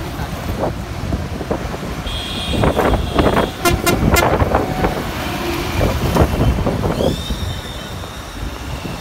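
Road traffic rumbling in gusty storm wind, with a vehicle horn held twice, first about two seconds in and again from about seven seconds in. A quick run of sharp clicks or rattles comes in the middle.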